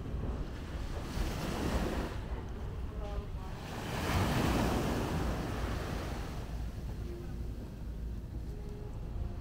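Small waves breaking and washing up on a sandy beach, with wind rumbling on the microphone; the wash swells loudest about four seconds in.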